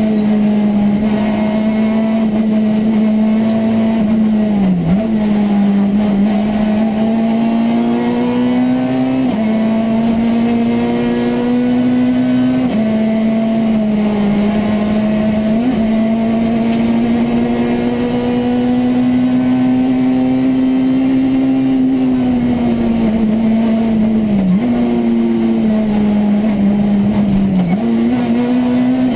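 Citroën C2 R2 Max rally car's four-cylinder engine, heard from inside the cabin, running hard at high revs on a stage. Its pitch dips briefly and steps between levels several times through gear changes and lifts, over steady road and tyre noise.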